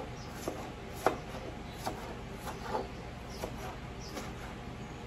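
Ceramic kitchen knife slicing tomatoes on a cutting board: a series of irregular sharp taps as the blade strikes the board, the loudest about a second in.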